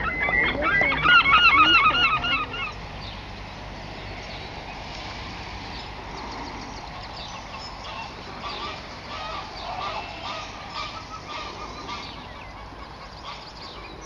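Gulls calling: a loud fast run of repeated wavering calls for the first couple of seconds, then fainter scattered calls over a steady background hiss.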